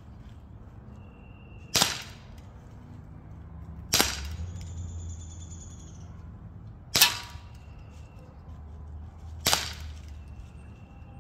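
Umarex Glock 17 Gen3 CO2 blowback BB pistol firing four single shots, each a sharp crack, about two to three seconds apart. A faint high ringing tone lingers for about two seconds after the second shot.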